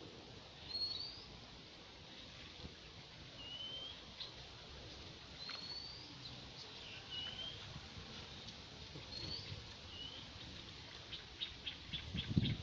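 A bird calling over and over with short, rising whistled notes, one every second or two. A quick run of faint clicks comes near the end.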